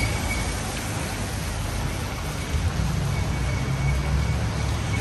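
Rainy city street: road traffic running past, a low vehicle rumble strongest midway, over a steady hiss of rain and wet road.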